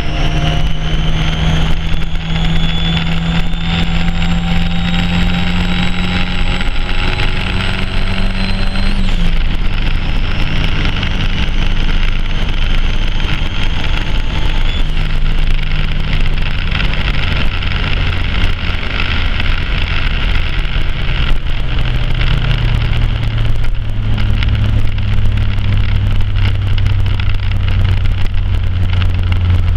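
Car engine running steadily, with a thin high whine that rises slowly for about nine seconds and then drops away.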